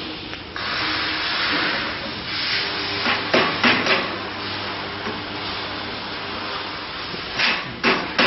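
Steel band saw blade being handled and clamped in the jaws of a flash butt-welding machine: a few sharp metal clacks about three to four seconds in and again near the end, over a steady hiss with a low hum.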